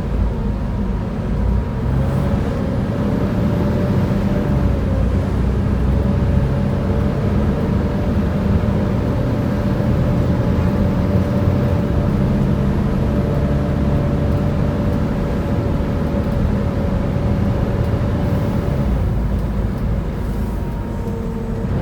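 Volvo B7TL double-decker bus's diesel engine running with its hydraulic cooling fan roaring and hoovering, a steady rushing drone with a held whine over it and small shifts in pitch.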